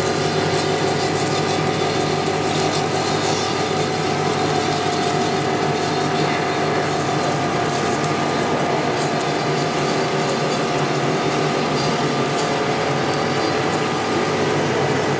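Synthetic string (sutli) making plant running: a steady machine noise with several held tones that does not change.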